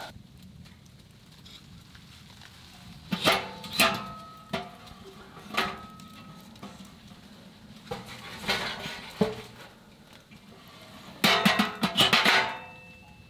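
Split firewood being fed into a Savotta wood stove: a series of knocks and clunks of logs against the thin steel firebox, each followed by a brief metallic ring. Near the end comes the loudest cluster of metal clanks, as the stove door is shut and latched.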